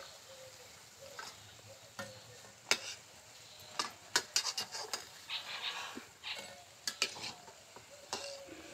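Urad dal vadas frying in hot mustard oil in a steel kadhai, a steady soft sizzle. A steel ladle clicks sharply against the metal a dozen or so times as the vadas are turned and lifted out, and the sizzle briefly grows louder about five seconds in.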